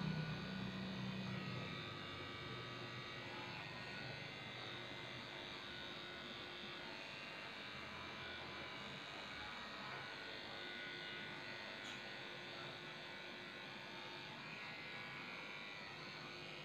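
Electric dog grooming clippers running steadily as they shave down a dog's coat. There is a deeper hum in the first couple of seconds, which then eases.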